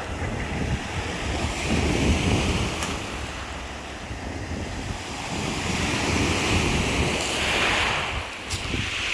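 Black Sea surf breaking and washing on the shore, swelling louder twice, with wind rumbling on the microphone.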